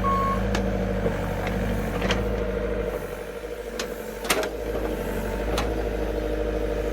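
Engine of a heavy machine running steadily while it tamps backfill around a pole, its reversing beeper ending just after the start. About five sharp knocks and clanks sound over the engine, the loudest a little over four seconds in.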